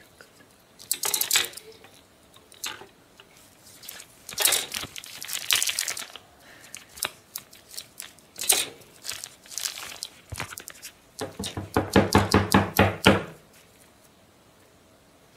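Plastic toy-kit parts and their packaging being handled by hand: rustling and crinkling in several bursts, then a fast run of clicking rattles about two-thirds of the way through, the loudest part.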